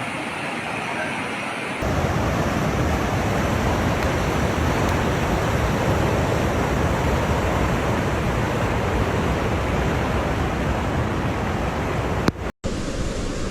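Steady rush of fast-flowing floodwater. It jumps abruptly louder and deeper about two seconds in, cuts out for a moment near the end, then continues thinner.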